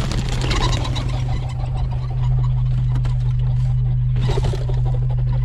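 Steady low hum of an idling engine. Over it come rustling and clattering as plastic crates are handled, in the first second and again briefly about four seconds in.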